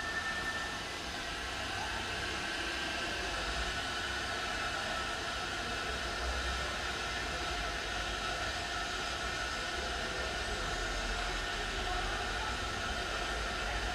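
Steady mechanical hum and hiss with a thin, steady high whine over it, unchanging throughout.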